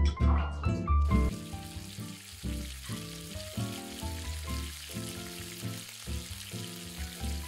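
Sweet potato chunks tipped into hot cooking oil in a frying pan; from about a second in the oil sizzles and bubbles steadily as they deep-fry. Background music plays throughout.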